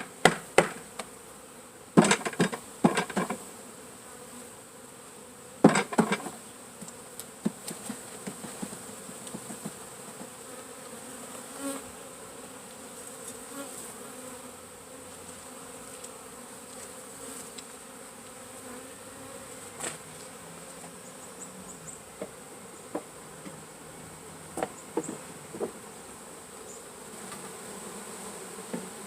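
A mass of honeybees buzzing steadily as a package of bees is installed into a hive. Sharp wooden knocks and clatters come in the first few seconds and again about six seconds in, with a few lighter taps after.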